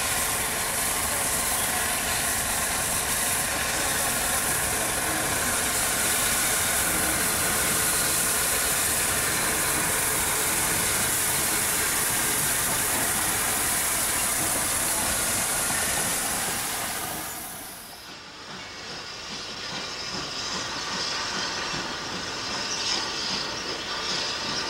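Rebuilt Merchant Navy 4-6-2 steam locomotive No. 35005 working slowly past with a loud, steady hiss of steam. About three-quarters of the way through, this gives way to a quieter Class 20 diesel-electric locomotive hauling coaches, growing louder as it approaches.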